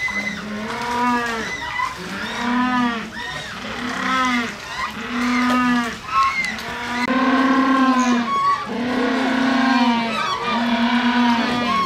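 Humboldt penguin braying: a run of about eight loud, donkey-like calls in quick succession, some short and some drawn out past a second. This is the species' ecstatic display call.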